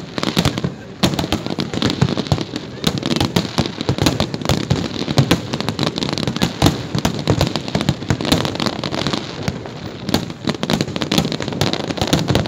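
Fireworks display: a dense, continuous run of bangs and crackles from many aerial shells exploding in quick succession, with a brief lull about a second in.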